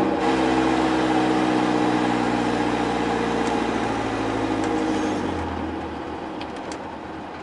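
GAZelle Farmer light truck's four-cylinder petrol engine running under way, heard from inside the cab; its note sinks slowly as the revs fall, then drops away and goes quieter about five seconds in.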